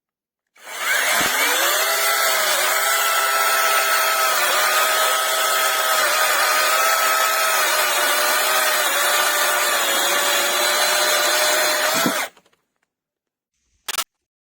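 Supstable 1000 W brushless mini cordless electric chainsaw spinning up about half a second in and running at a steady whine for about eleven seconds, its pitch dipping slightly now and then as it cuts wood, then stopping abruptly. A short knock follows near the end.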